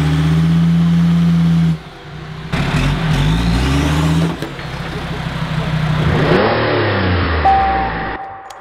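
The trial-built Mercedes G-Class's turbocharged diesel engine running at high revs and being revved as the truck climbs onto a trailer, heard in several edited cuts. A short steady tone sounds near the end as the engine sound fades.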